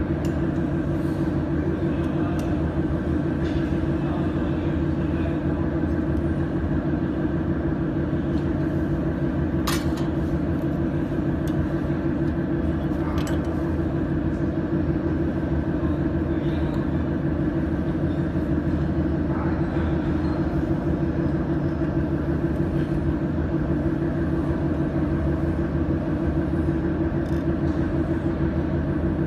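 Laser welding machine running with a steady, loud machine hum made of several steady tones over a low rumble. A few short sharp clicks stand out, one about ten seconds in and another about three seconds later.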